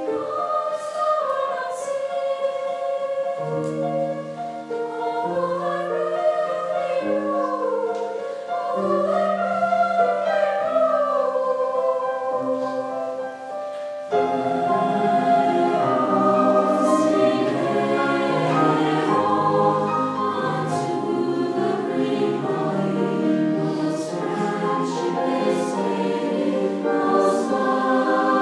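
Concert choir singing: a melody rising and falling over held lower notes, then about halfway through the full choir comes in together and the sound grows fuller and louder.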